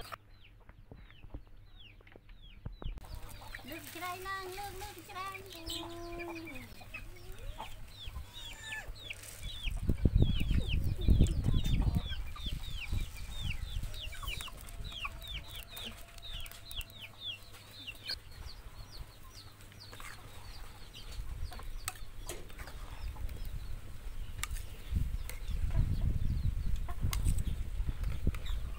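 Chickens clucking, with a long run of short falling chirps repeated several times a second. About ten seconds in comes a loud rush of soaked sticky rice being poured from a plastic basket into a metal wok, and near the end the rice is scraped and turned with a metal spatula.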